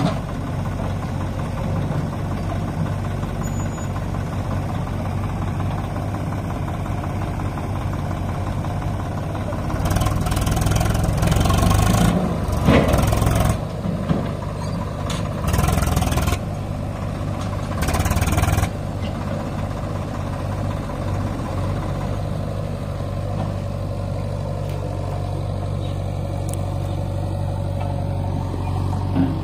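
Diesel engines of a Swaraj 744 FE tractor and a JCB backhoe loader running steadily, with a low, even drone. Four louder stretches of a second or two come between about ten and nineteen seconds in.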